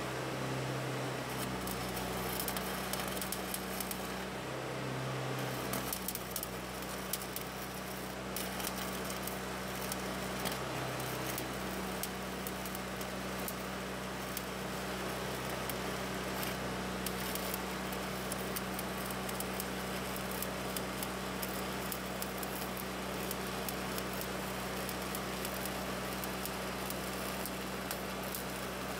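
Arc welding on steel: the arc's steady crackle and hiss as a bead is run, with a low steady hum underneath.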